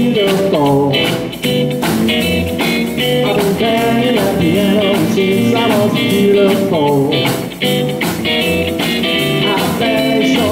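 Live rockabilly trio playing an instrumental break: electric guitar lead with notes that bend, over upright bass and a drum kit keeping a steady beat.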